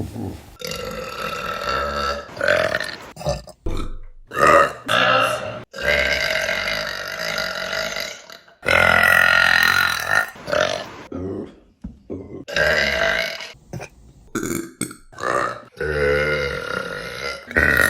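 A rapid run of loud burps from different people, spliced one after another with abrupt cuts between them. Some are long, drawn-out belches lasting a couple of seconds, and others are short single burps.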